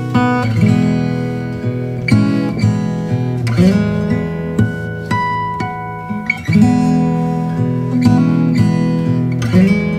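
Background music led by plucked acoustic guitar.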